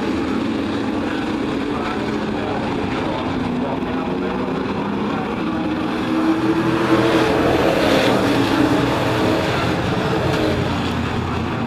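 A pack of race trucks' engines running at speed around a short oval. The sound swells about six seconds in as the pack passes close and eases off again after about nine seconds.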